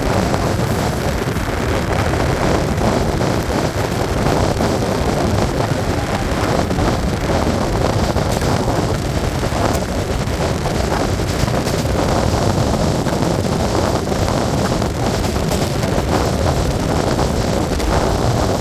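Wind rushing over the microphone from a fast-moving express train, mixed with the steady running noise of the coaches' wheels on the track.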